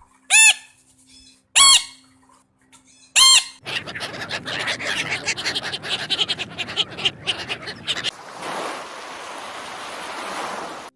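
An animal gives three short, loud calls about a second and a half apart. A dense, rapid chatter of sounds follows, then a steady hiss.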